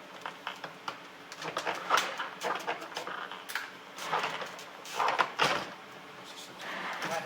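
Andersen exterior window trim being pried loose with a pry tool: irregular scraping, creaking and sharp clicks as the trim is worked off the frame.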